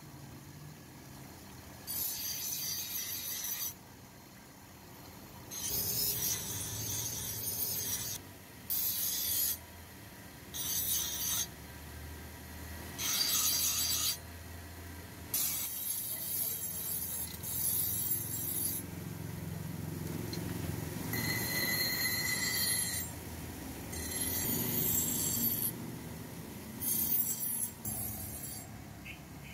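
Steel knife blade sharpened on a spinning grinding wheel: about nine passes, each a grinding hiss lasting one to two seconds. The wheel's motor hums low between passes.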